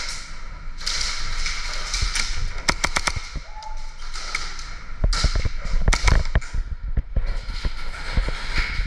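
Airsoft gunfire: sharp pops and cracks of airsoft guns and BB hits over a noisy hiss. There is a quick run of cracks about three seconds in and another cluster around five to six seconds in.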